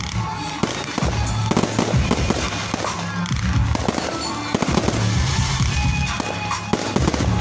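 Fireworks bursting and crackling in rapid, overlapping succession, with music playing underneath.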